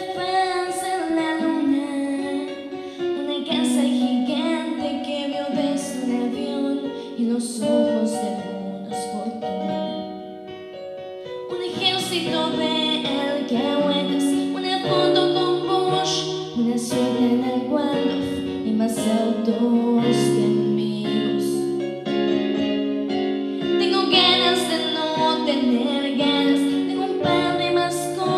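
A young woman singing a slow ballad into a handheld microphone, live, over instrumental accompaniment; the music drops quieter briefly about ten seconds in, then builds again.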